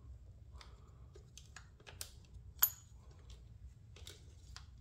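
Allen key turning a short screw into a throttle-body adapter plate: scattered small metal clicks and taps, the sharpest a ringing clink about two and a half seconds in.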